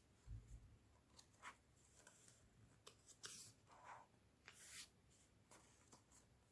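Faint, short rustles and light taps of glossy photo book pages being handled and turned, a few scattered through otherwise near silence.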